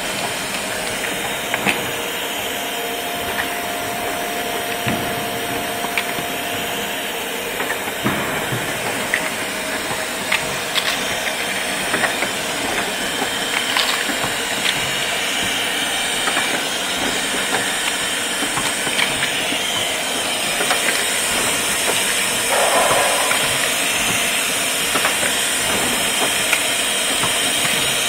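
Five-colour pad printing machine with part extractor running: a steady hiss with scattered, irregular clicks and knocks from the machine's moving heads and fixtures.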